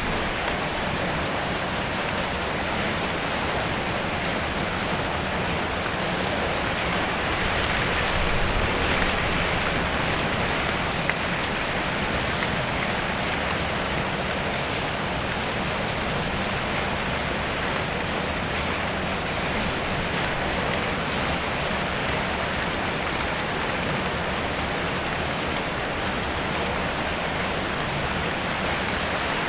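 Steady rain falling on a car, heard from inside: a dense, even hiss of drops on the metal body, swelling slightly about eight seconds in.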